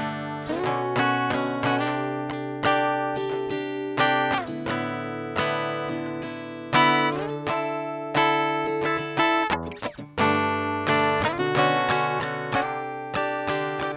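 Acoustic guitar playing a happy-sounding melody over chords, with notes and chords plucked and left to ring. There is a brief break in the playing about two-thirds of the way through.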